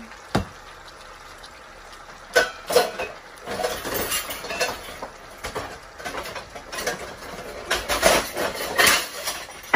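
Kitchen clatter of pots, pans and utensils: a string of irregular clinks and knocks, sharpest about two and a half seconds in and again near the end.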